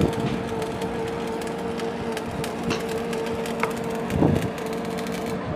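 Truck-mounted borewell drilling rig running steadily: a constant whine over dense machine noise, with a dull knock about four seconds in.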